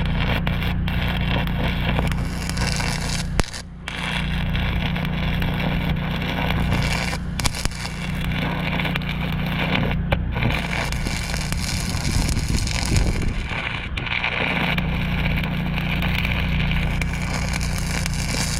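Stick welding arc crackling and sizzling steadily as a flux-coated steel rod burns into a thick steel joint, laying a weld bead, over a steady low hum. The arc breaks off briefly about four seconds in and dips again near fourteen seconds.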